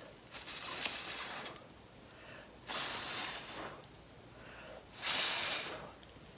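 A person blowing hard by mouth onto wet pour-painting acrylic to push the top layer aside, three long puffs of breath of about a second each.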